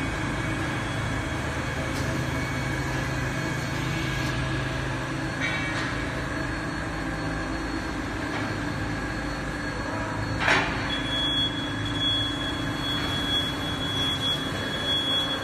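MgO board production-line machinery running steadily, a rail-like rumble of roller conveyors and rack handling gear. A sharp clank comes about ten and a half seconds in, followed by a thin, steady high-pitched squeal or tone that lasts most of the rest.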